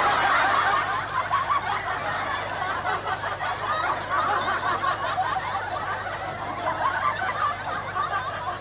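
Laughter, dense and overlapping like several people snickering and chuckling at once, starting and cutting off suddenly.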